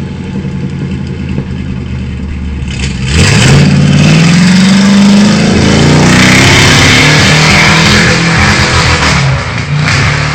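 Modified 4x4 mud truck's engine running, then revved hard about three seconds in, the pitch climbing, with a loud rushing noise for several seconds before it eases off near the end.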